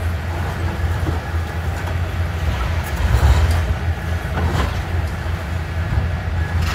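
Hitachi ZX490 demolition excavator's diesel engine running with a steady low drone under hydraulic load while its crusher jaws work a concrete wall, with scattered cracks and crunches of breaking concrete and falling rubble, heaviest around three to five seconds in.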